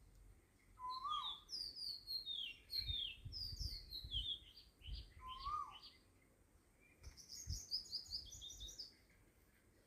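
Birds chirping: quick, high twittering in two spells, with a lower call that rises and falls, heard twice. Soft low thumps run beneath.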